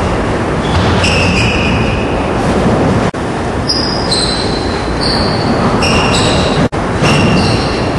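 Sneakers squeaking on a wooden squash court floor as a group runs a drill, in short high squeals over a loud steady din of footsteps and echo in the court. The sound cuts out for an instant twice, about three and seven seconds in.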